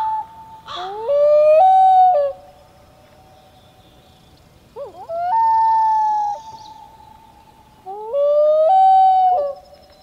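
Common loons giving three long wail calls, about a second, five seconds and eight seconds in. Each call is a drawn-out note that jumps between pitches, held, then drops away and trails off in an echo.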